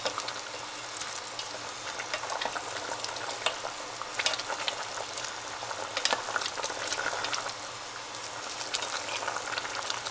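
Potato sticks parboiling in a stainless steel pot of salted water at a rolling boil: a steady bubbling with many small pops. A spatula stirs the sticks in the pot, with a few sharper clicks.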